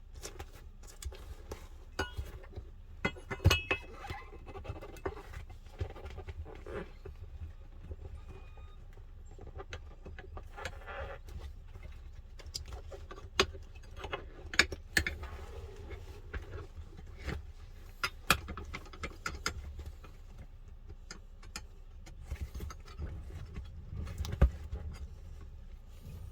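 Scattered clicks, knocks and metallic clinks of hand tools and bolts being handled while working on a truck seat's armrest bolt, a few sharper knocks standing out over a low steady hum.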